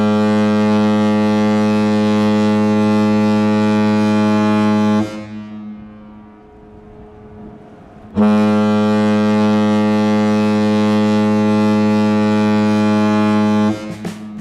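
Cruise ship Mein Schiff 5's horn sounding two long blasts on departure from the quay. Each blast is a deep, steady note lasting about five seconds, with a pause of about three seconds between them.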